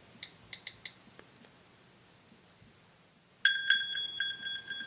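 Light key clicks from typing on an iPhone's on-screen keyboard. About three and a half seconds in, an iPad 3G starts playing the Find iPhone alert, a repeating high bonging tone that signals a remotely sent message has arrived and helps locate the device.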